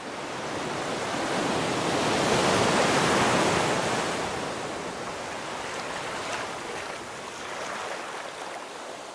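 Rushing water, a steady hiss that swells over the first three seconds and then eases off.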